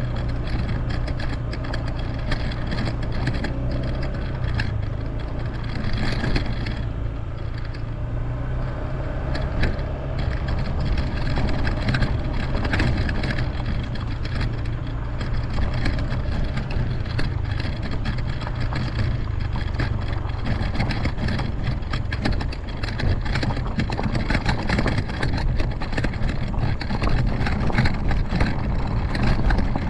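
Honda ADV150 scooter's single-cylinder engine running steadily while riding a bumpy dirt track, with frequent small knocks and rattles throughout.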